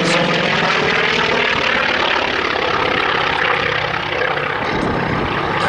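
The twin Pratt & Whitney R-1830 Twin Wasp radial engines of a Consolidated PBY-5A Catalina amphibian running after landing, a loud steady propeller drone.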